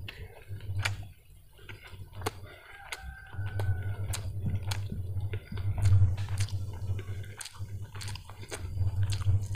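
Someone starting to eat: utensils clicking sharply against a dish, and chewing close to the microphone that comes and goes as a low rumble.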